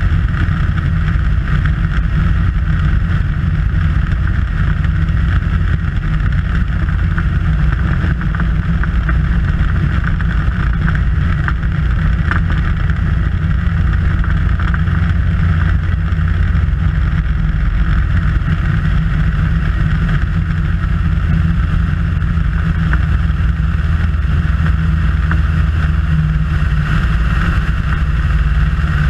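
Piper Super Cub's engine and propeller running steadily in flight, heard from a camera on the rudder with airflow rushing over the microphone.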